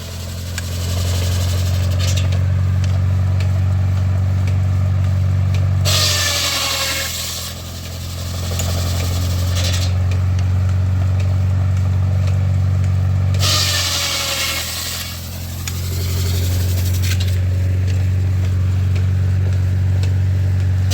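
An engine-driven wood-cutting machine runs with a steady low drone. About every seven seconds a two-to-three-second rasping hiss of wood being cut cuts in as the drone dips under load.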